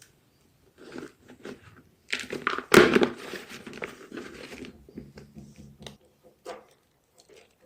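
Homemade gym chalk being crushed, crunching and crumbling. A few small crackles come first, then a loud burst of crunching about two seconds in that dies away into scattered crackles.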